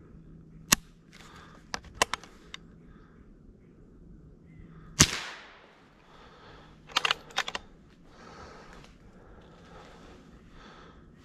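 .22 rimfire rifle shots: a sharp crack about a second in and a louder one at about five seconds with a short echo. Smaller quick clicks come in clusters near two seconds and seven seconds. The shooter thinks his old ammunition is barely firing.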